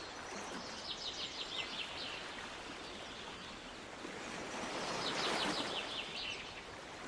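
Sea waves washing on the shore, one swelling about five seconds in, while a small songbird sings two quick trills of short, falling high notes: one about a second in and another near the swell.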